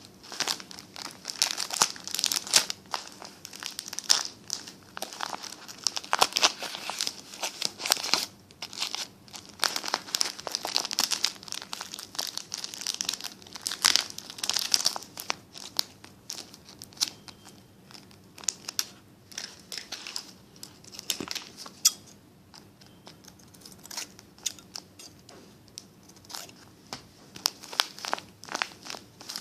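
Paper crinkling and crumpling as it is handled, a dense crackle for roughly the first half, sparser and quieter after that, then busier again near the end.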